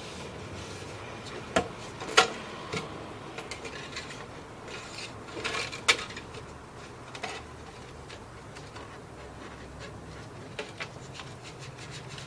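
ABS plastic pipe and fittings being handled, giving scattered knocks and clicks and a short scraping rub about five and a half seconds in.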